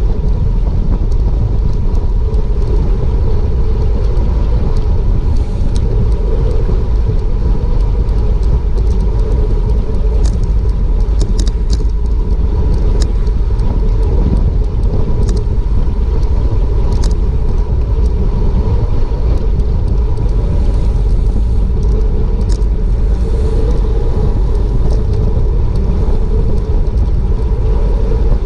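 Wind buffeting a bike-mounted GoPro microphone at racing speed: a loud, steady rumble, with a few sharp clicks from the bike about ten to thirteen seconds in and again near seventeen and twenty-two seconds.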